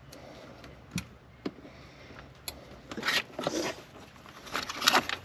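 Hands-on work inside a vehicle cab: a few light knocks, then two spells of scraping and rustling, as of carpet and trim being handled and moved on the bare floor.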